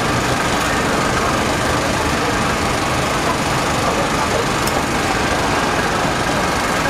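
Steady, constant engine-like hum and rush of background machinery, with faint voices underneath.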